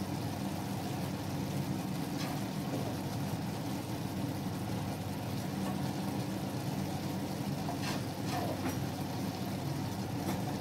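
Steady low kitchen rumble under the cooking pot on a gas stove, with a couple of faint light ticks as toppings are scattered onto the rice.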